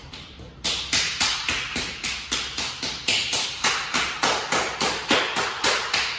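A fast, even run of sharp hand slaps, about three and a half a second, from a grappling hand-fighting drill, starting under a second in.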